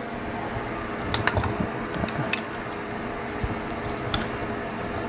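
A few light clicks and knocks from the metal parts of a new DZQ Vise 5 engraving ball vise being handled and moved.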